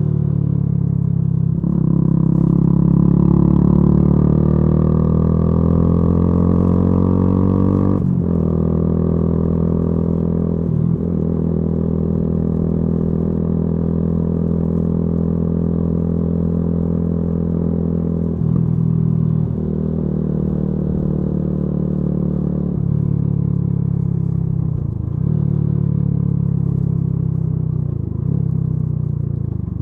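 Yamaha YZF-R125's single-cylinder four-stroke engine running through a modified exhaust while riding. The pitch climbs steadily for several seconds under acceleration, breaks sharply about eight seconds in, then holds mostly steady with a few brief drops in pitch.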